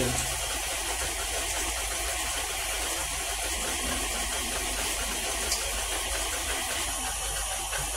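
KitchenAid tilt-head stand mixer running steadily, its wire whip creaming sugar and soft margarine in a steel bowl until fluffy, with an even motor hum.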